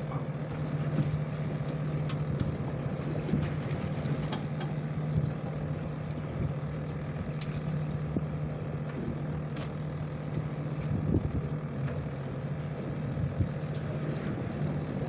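Party fishing boat's engine running with a steady low hum, with a few faint ticks over it.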